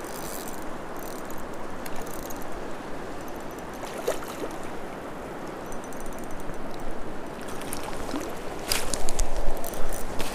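River current rushing over shallow riffles, a steady wash of water, with a few sharp clicks near the end.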